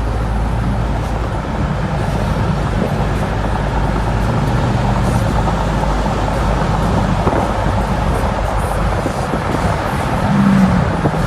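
Car driving along a road: steady engine and tyre noise, swelling briefly about ten seconds in.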